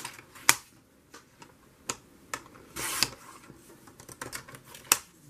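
Scissors cutting paper: a few sharp, separate snips spaced a second or more apart, the loudest about half a second in, with a longer cutting stroke about three seconds in.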